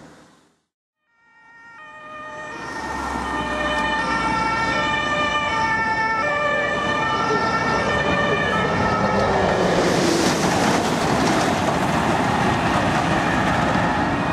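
An emergency vehicle's two-tone siren (Martinshorn) alternates between two pitches. It fades back in after a second-long gap near the start. From about ten seconds in, the noise of passing traffic grows louder and largely covers the siren.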